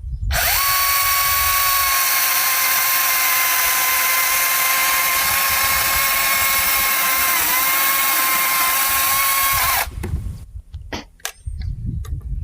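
DeWalt DCM575 54 V FlexVolt cordless brushless chainsaw starting instantly and running at a steady high whine for about ten seconds, its pitch dipping briefly once near the end, then stopping abruptly. A few sharp knocks follow.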